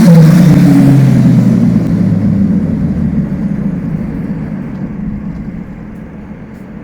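Kawasaki Z750 motorcycle with a Yoshimura exhaust, its engine note dropping in pitch and fading steadily as it moves away through a tunnel.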